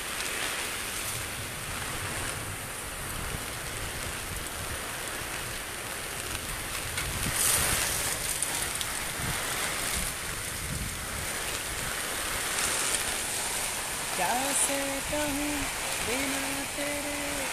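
Heavy rain pouring steadily, with a couple of brief louder rushes. About fourteen seconds in, a man's voice comes in with held, level tones.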